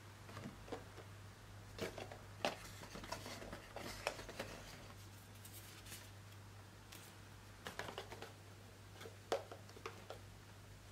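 Cardboard box and paper insert being handled: flaps opened and a leaflet slid out, giving scattered taps, scrapes and rustles in small clusters, over a faint steady low hum.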